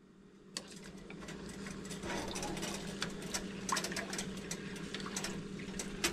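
Stovetop burner turned to high under a pot of water and rice: a steady hum that slowly grows louder, with irregular light ticking as the pot heats.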